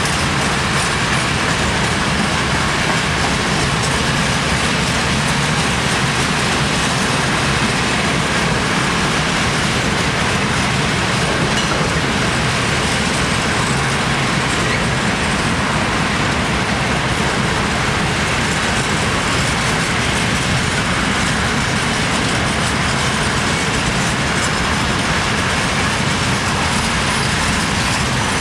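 Long rake of Eaos open freight wagons rolling past, a steady rumble of wheels on rail.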